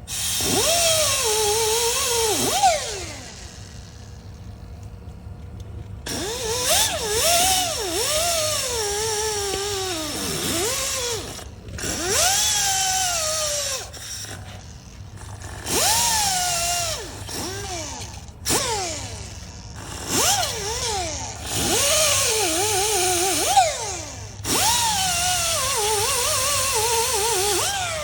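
Handheld electric power tool run in about eight short bursts of one to three seconds each. Its motor whine rises and falls in pitch as the trigger is squeezed and released.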